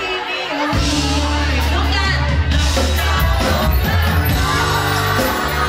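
Live pop-rock band playing, with a woman singing into a microphone over electric guitar and a heavy bass line; the bass comes in about a second in.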